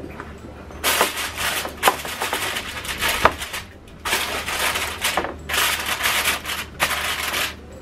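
Aluminium foil crinkling as it is pressed and crimped around the rim of a baking dish, in several crackly bursts starting about a second in.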